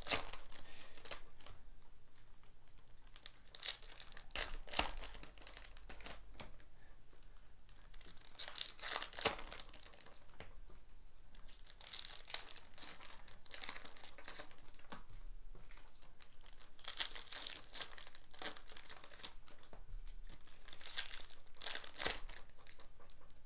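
Foil trading-card packs being torn open by hand, the wrappers crinkling in repeated bursts of crackly rustling every few seconds.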